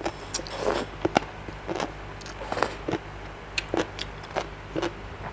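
Close-miked eating of spicy seafood papaya salad: irregular crunchy bites and wet chewing clicks and smacks of the mouth.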